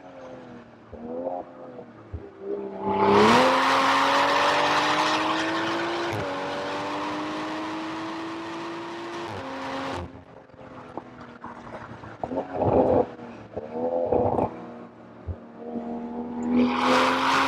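BMW M340i's turbocharged 3.0-litre inline-six under hard acceleration on track. The engine note climbs steadily, drops at an upshift about six seconds in and climbs again. The driver lifts off around ten seconds in, and it pulls hard again near the end.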